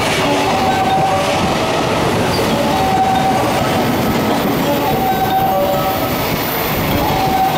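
Freight train of container flat wagons rolling past close by, a loud steady rumble and rattle of wheels on rail. Short squealing tones from the wheels recur every two seconds or so.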